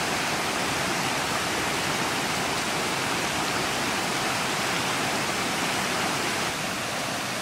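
Steady rushing of a mountain stream, an even hiss at a constant level with no separate splashes or bubbles.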